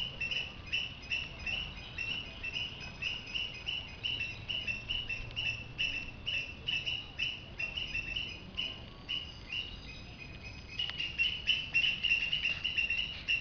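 Steady run of short, high-pitched chirps, about three a second, all at one pitch. They fade for a couple of seconds past the middle, then come back louder.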